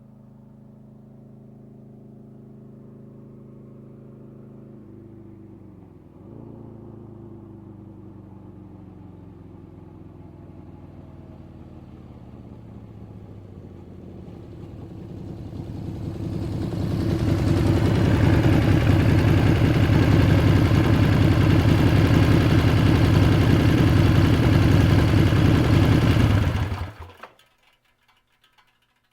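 Engine sound effect: a low, steady running hum that builds from about halfway through into a loud roar, held for about ten seconds, then cut off abruptly near the end.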